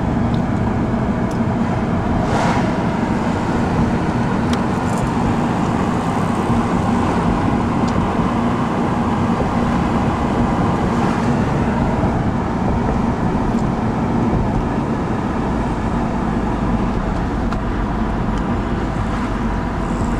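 Car driving at a steady speed, heard from inside the cabin: an even drone of engine and tyre road noise with a low steady hum.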